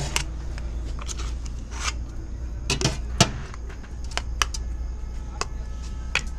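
A metal serving spoon scraping and clinking against a large cooking pot and plates as rice khichuri is dished out. The sharp clinks are scattered, the loudest about three seconds in, over a steady low hum.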